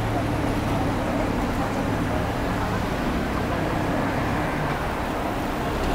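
Steady city street traffic noise, with the low hum of idling vehicle engines.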